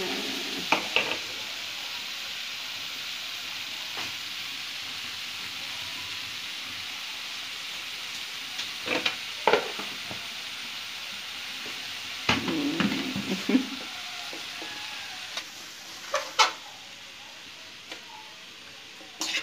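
Sliced ivy gourd, onion and chilli sizzling steadily in a metal kadai, with a slotted steel spoon scraping and clinking against the pan in short bouts every few seconds as the vegetables are stirred.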